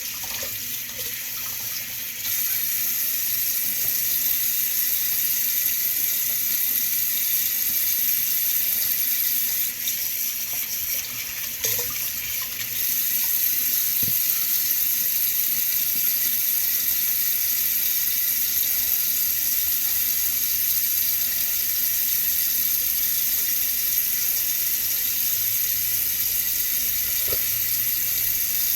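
Kitchen tap running steadily into a sink, the water stream hissing and splashing, with brief changes in the flow about ten and twelve seconds in.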